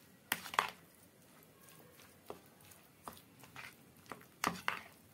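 A metal spoon stirring grated beetroot into thick yogurt in a bowl: wet squelching with irregular clicks and scrapes of the spoon against the bowl, sharpest about half a second in and again near the end.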